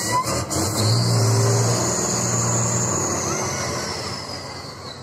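Off-road trial truck's diesel engine revving hard under load, a loud drone for a couple of seconds that then gradually eases off. A high whine rises with it and slowly falls away.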